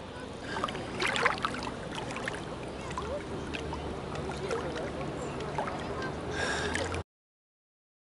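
Sea water lapping and splashing around a bather at water level, with a cluster of sharper splashes about a second in. The sound cuts off abruptly about seven seconds in.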